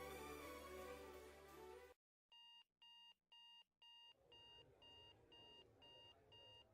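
Background music cuts off about two seconds in, followed by an electronic alarm clock beeping: short high-pitched beeps about twice a second, going off in the morning to wake someone.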